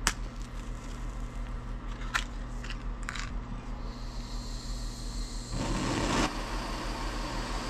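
A wooden match struck with a few scratchy clicks, then the hiss of gas from a propane hand torch's opened valve. About five and a half seconds in the torch catches with a short rush, then burns on with a steady hiss.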